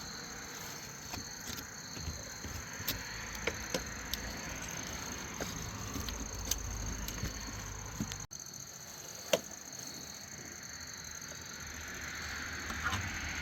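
Background ambience with a steady high insect chirring and scattered small clicks and taps, with one sharp knock a little past halfway.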